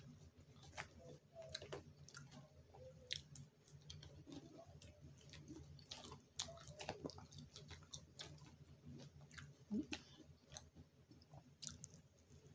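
Faint chewing of a lettuce-and-apple salad, with small scattered clicks of a fork picking through the clear plastic salad bowl.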